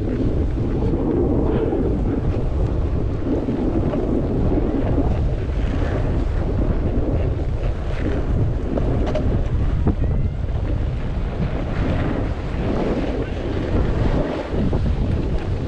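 Wind buffeting the microphone of a camera carried by a skier moving downhill, a steady loud rumble mixed with the hiss of skis sliding on snow.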